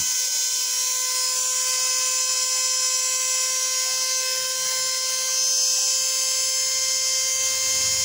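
Opened-up hair dryer running on its heat setting: a steady electric motor whine over a high hiss, as hair caught in its heating element begins to burn off.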